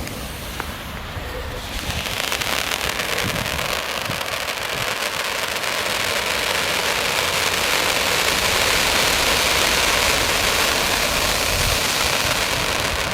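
Cone fountain firework spraying, a steady loud hiss that starts about two seconds in and holds.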